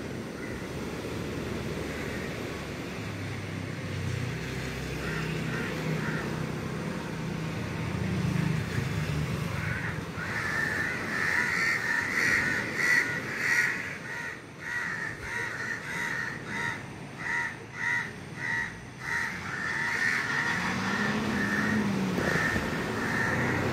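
Crows cawing, with a long run of short, repeated caws from about ten seconds in. Earlier a vehicle engine passes on the road, and near the end another engine rises and falls in pitch as it goes by.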